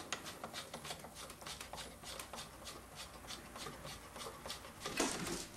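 Steel nut being screwed by hand onto the Remington 740 Woodsmaster's threaded tube: light metallic ticking and rubbing, several ticks a second, as the nut works past the first set of threads onto the second.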